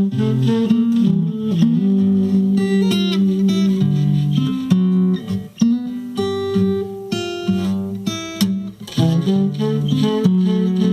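Blues guitar music playing back through a car audio system: plucked guitar notes and chords over a steady bass line.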